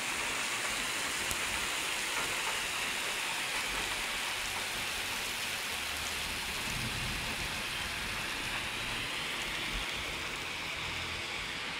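Heavy downpour: a steady hiss of rain pelting asphalt, puddles and grass.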